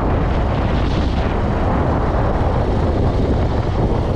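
Steady wind rush buffeting the microphone of a camera riding on a moving vehicle, mixed with the vehicle's running and road noise.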